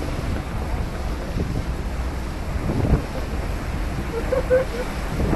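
Wind buffeting the microphone on the open deck of the Staten Island Ferry underway, over a steady rush of water from the churning wake, with a stronger gust about three seconds in.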